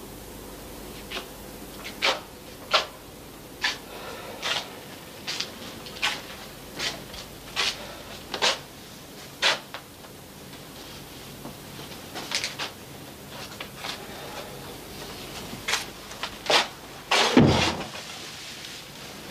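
Footsteps at a slow, even walking pace, short crunchy steps about one every second, growing sparser later, with one heavier thump about 17 seconds in.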